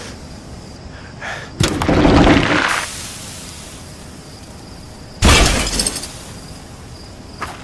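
Two sharp crashes, one about one and a half seconds in and one about five seconds in. Each is followed by about a second of clattering, shattering noise. A faint high ringing tone runs underneath.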